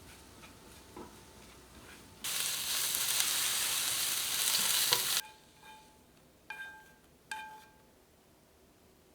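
Food sizzling loudly in a hot frying pan for about three seconds, starting and stopping abruptly, followed by two light ringing clinks of a utensil against cookware.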